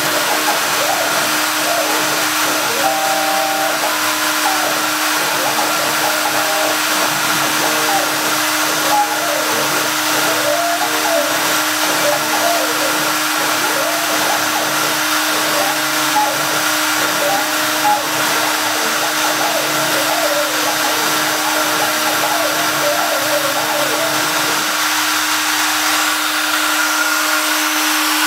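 Small gantry CNC router's spindle motor running with a steady whine while it cuts lettering into a block of blue foam. Above it, tones that shift in pitch every second or so come from the axis drives as the head moves, and these stop about 25 seconds in, leaving the spindle running alone.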